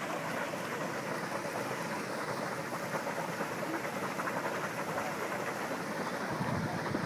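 Volcanic hot spring pool bubbling and seething, with steam venting: a steady, rain-like hiss of agitated boiling water. A brief low rumble near the end.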